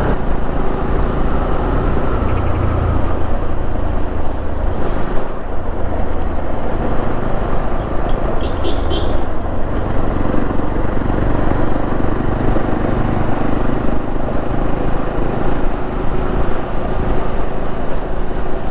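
Motorcycle running at road speed, a steady low engine rumble mixed with wind noise on the microphone. A few short high-pitched chirps sound about eight seconds in.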